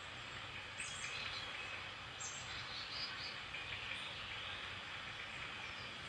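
Steady hiss of rain and tyres on a wet road, with a low rumble underneath, and birds giving short high chirps several times.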